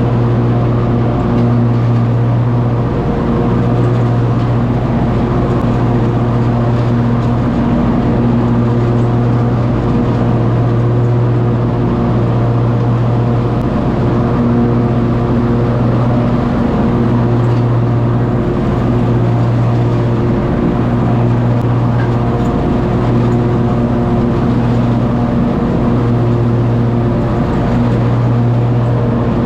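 Zero-turn riding lawn mower engine running steadily at full throttle while mowing, its pitch dipping briefly now and then.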